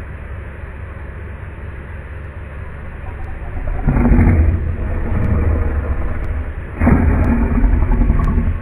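Deep, rumbling snoring: two long, loud snores about three seconds apart over a steady low rumble.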